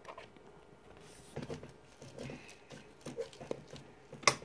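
Homemade slime being kneaded and pulled by hand: soft, irregular little squishes and sticky clicks, with one sharper click shortly before the end.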